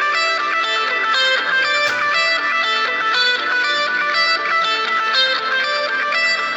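Samsung Galaxy J4+ call ringtone playing: a guitar-like plucked melody of quick notes repeating in a looping phrase.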